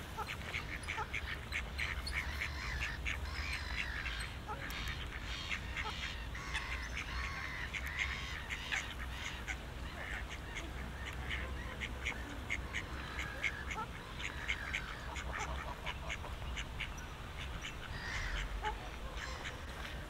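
Ducks quacking among many small birds chirping, over a low steady rumble.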